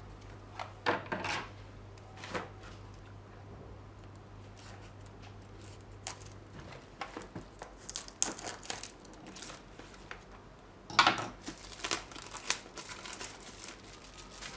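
Plastic shrink-wrap on a small cardboard box being cut with scissors, then crinkled and torn off, in irregular snips and crackles with the loudest burst about two-thirds of the way in.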